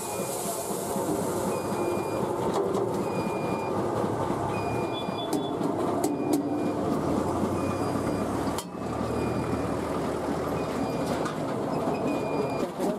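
Poha-making (flattened rice) machinery running with a steady, dense clattering rattle. A short, high squeak recurs roughly once a second.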